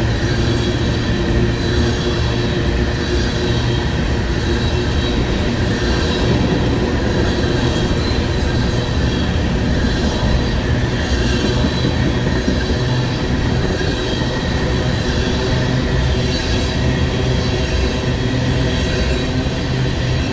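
A freight train's tank cars rolling past close by: a steady rumble of steel wheels on rail with a high, steady squeal from the wheels and the odd click from the rail joints.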